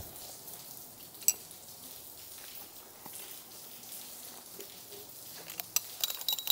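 A folded metal-framed camp stool being pushed into a cloth drawstring bag: soft fabric rustling over a faint steady hiss, with a sharp click about a second in and a run of clicks and rustles near the end.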